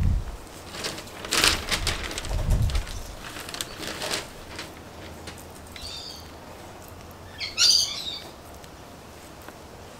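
A bolus of moist loam soil being kneaded and worked between the fingers for a hand texture test, giving gritty rustling and crumbling with a couple of dull bumps in the first few seconds. A bird chirps briefly about six seconds in and again, louder, near the end.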